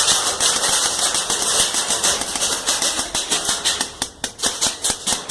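Airsoft guns firing in rapid bursts, a fast rattling run of sharp shots that lets up briefly about four seconds in.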